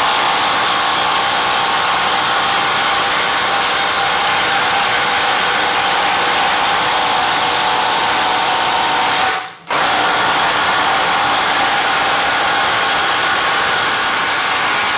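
Two cordless impact drivers, a Stanley Fatmax SBI 810 and a Craftsman V20, running together at full speed under load, driving bits into a thick wooden beam. The tools run steadily, with a brief break about two-thirds of the way through before they carry on.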